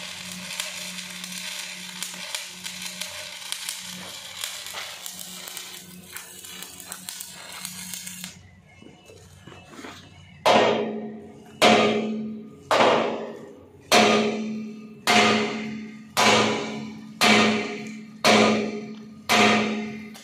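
Electric arc welding on steel plate, crackling over a steady low hum, stopping about eight seconds in. Then a hammer strikes the steel tipper body of a dump truck nine times, about once a second, each blow loud and ringing out before fading.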